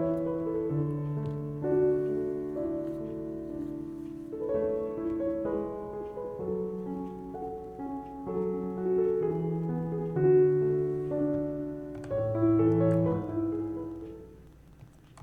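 Slow piano music playing, fading out near the end.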